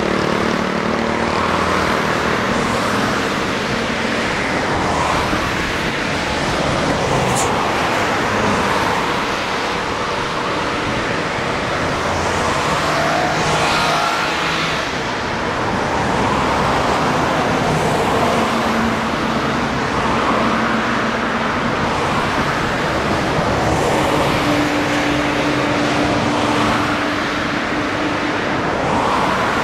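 Road traffic: cars passing one after another in a steady wash of tyre and engine noise, with a low engine drone held for a few seconds now and then.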